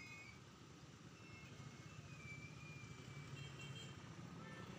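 Faint, steady low rumble of engines in slow street traffic, with a few faint high tones above it.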